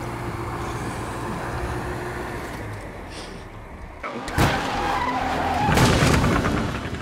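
Race-car sound effects from an animated film: cars running on a track with tires skidding. There is a sudden loud sound about four and a half seconds in, and louder skidding near six seconds.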